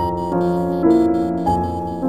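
Background piano music: a slow melody with new notes struck about every half second.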